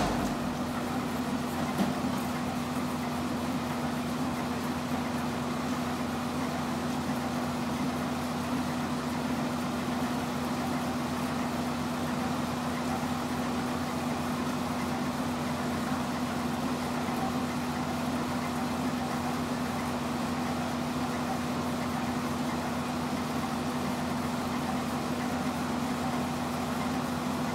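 Industrial plastics granulator switched on with a click, then running empty with a steady hum and a strong low tone from its electric motor and rotor.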